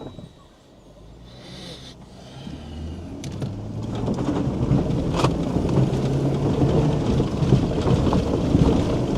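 Pickup truck pulling away and driving, its engine and road rumble building over the first few seconds into a steady rumble, with a sharp knock about five seconds in.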